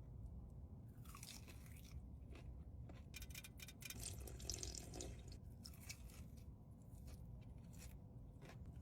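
Crunchy fried chicken being bitten and chewed, with crackling crunches about a second in and again a few seconds later.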